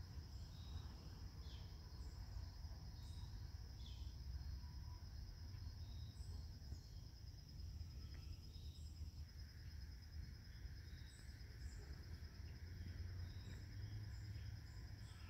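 Quiet outdoor ambience: a steady, high-pitched insect trill with scattered short high chirps over a low rumble. A second, lower steady buzz joins a little past halfway.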